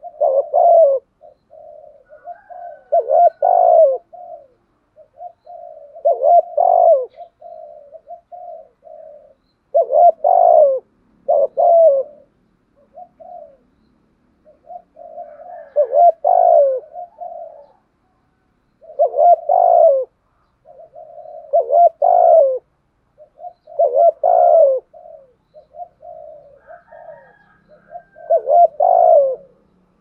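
Spotted dove cooing: loud multi-note coo phrases repeat about every two to three seconds, with softer coos in between.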